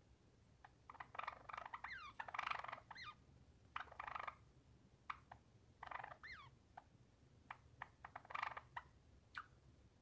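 Java sparrow singing: scattered single clicking notes and several bursts of rapid chattering with quick up-and-down whistled slides. The loudest bursts come about two and a half and eight and a half seconds in.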